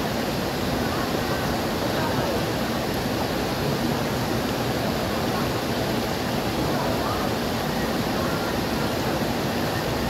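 Low, wide cascade waterfall and shallow river water rushing steadily over rocks.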